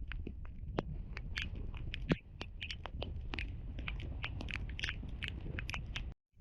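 Raindrops tapping irregularly on a hard surface close by, many small ticks a second, over a low steady rumble. The sound cuts out abruptly near the end.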